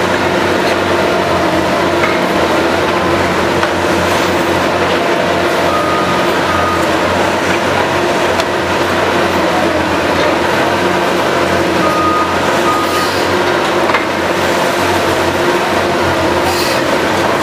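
Liebherr R 944 C tunnel excavator running steadily under load, its diesel engine and hydraulics working as it digs at the rock face. Short high beeps sound twice, around the middle and later on.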